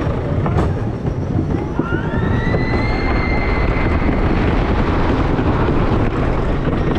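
Wooden roller coaster train running fast down a drop on wooden track: a loud, steady rumble of wheels on the track mixed with rushing wind. A high-pitched rising tone starts about a second and a half in, holds, and fades out about two seconds later.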